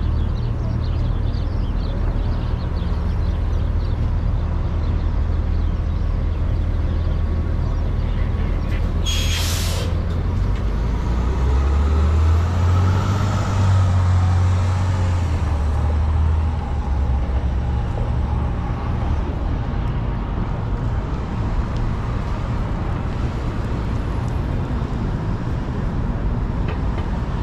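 Downtown street traffic with a steady low rumble of engines. About nine seconds in, a bus or truck's air brakes give one short, loud hiss. A heavy vehicle's engine then grows louder for a few seconds and eases off.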